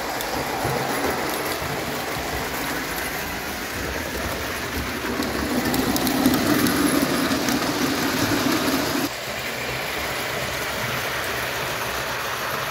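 0 gauge tinplate model trains running on metal track: a steady rattling running noise with fine clicks of wheels over the rails. It grows louder about five seconds in and drops back suddenly about nine seconds in.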